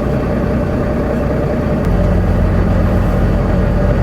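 Tractor-trailer's diesel engine and road noise heard inside the cab while driving, a steady drone. About two seconds in there is a click and the engine note changes to a steadier, stronger low hum.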